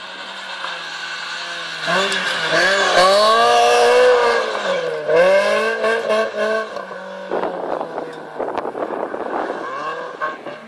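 BMW 318is E36 rally car's four-cylinder engine driven hard, its pitch climbing and dropping through several quick gear changes. In the last few seconds a rough crackling noise joins the engine.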